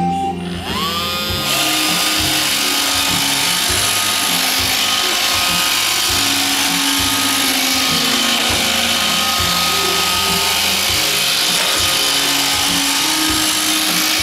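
iRobot Roomba 535 robot vacuum running: its motors spin up with a rising whine about half a second in, then the vacuum fan and brushes run steadily with a high whine and hiss.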